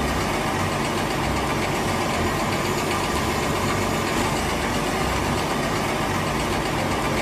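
A steady mechanical running noise like an idling engine, with an uneven low rumble and no break or change.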